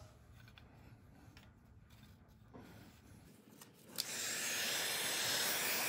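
Near silence, then about four seconds in a heat gun switches on and blows with a steady rushing hiss.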